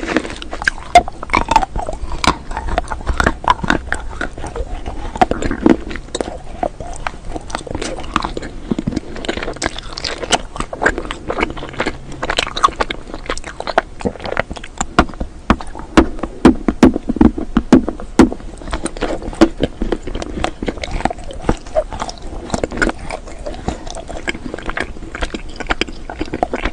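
Close-miked eating of hard coloured edible spoons: sharp snapping bites and crunchy chewing, a dense run of cracks and clicks.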